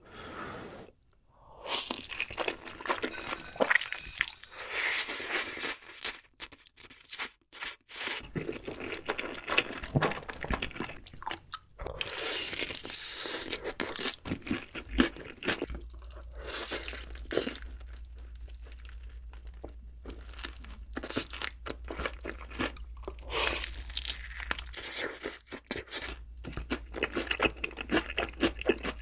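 Close-miked eating sounds: crunching bites into sauced fried chicken and chewing, with black bean noodles eaten from chopsticks, coming in irregular clusters with short pauses. A low steady hum joins about halfway.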